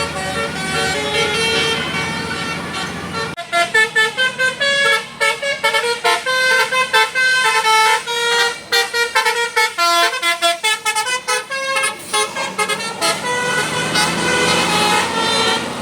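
A bus's telolet horn, the Basuri type, plays a quick melody of stepped notes over vehicle noise. The tune starts about three seconds in and runs for about eight seconds, then the steady vehicle noise returns with a few more horn notes near the end.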